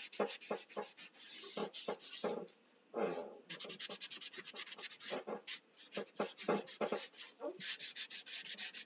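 A baby wipe rubbing thinned paint onto bare laser-cut wood, in quick back-and-forth scrubbing strokes, several a second, with a short pause about two and a half seconds in.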